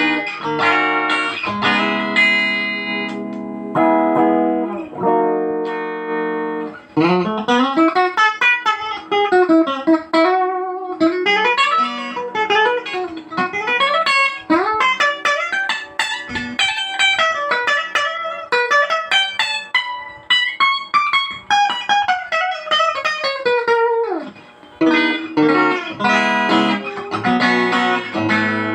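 Sunatone SG electric guitar on a clean tone. It plays ringing chords, then a long passage of quick single-note runs and arpeggios climbing and falling, and goes back to chords near the end.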